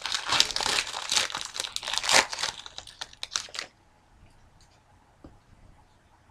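A hockey card pack's wrapper being torn open and crinkled by hand: a rapid crackling that stops about three and a half seconds in, followed by a few faint light clicks.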